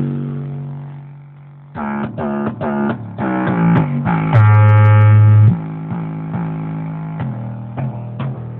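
Music with plucked guitar and deep bass notes, played through a VW Gol's car sound system; a loud held low bass note stands out about halfway through.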